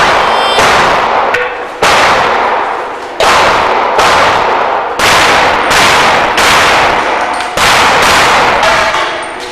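A string of about a dozen pistol shots at a fairly even pace during a practical shooting stage, each shot trailing off in a long echoing decay, with hits on steel plates clanging.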